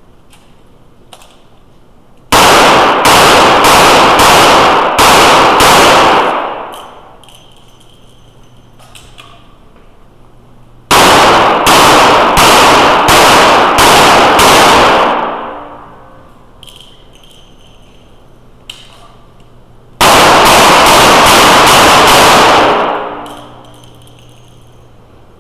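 Revolver fired in three quick strings of about six shots each, with pauses between strings. Each string ends in a long echoing tail from the indoor range.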